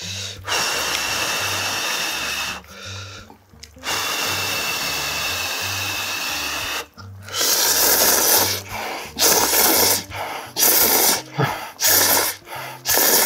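A person slurping instant ramen noodles, close to the microphone: two long slurps of about two seconds each, then about five shorter slurps roughly a second apart. Faint background music runs underneath.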